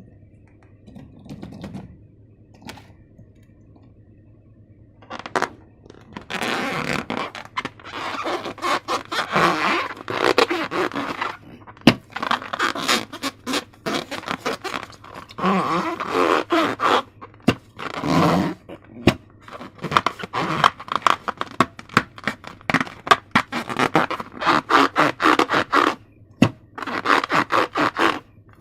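Close-up scraping with rapid, dense crackling and ticking from handling slime-making materials, starting about six seconds in after a quiet stretch with a few faint ticks.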